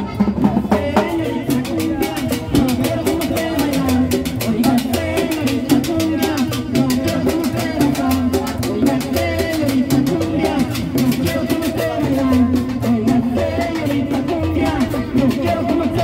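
Live Latin dance band playing: conga drums keeping a steady beat over an upright bass line, with guitars on top.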